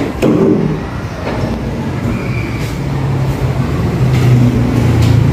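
Steady low rumble of background noise, growing somewhat louder, with a few faint knocks.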